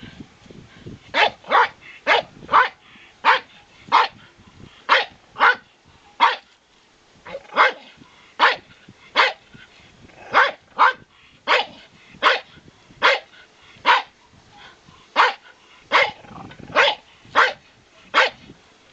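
Small terrier-type dogs barking again and again at a coiled garter snake: sharp, high-pitched yaps, about one or two a second, starting about a second in.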